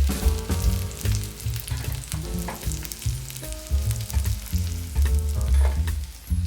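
Food sizzling and crackling as it fries in a pan, with background music playing under it.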